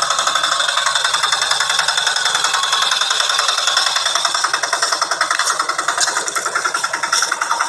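A small engine running steadily with a fast, even rattling beat.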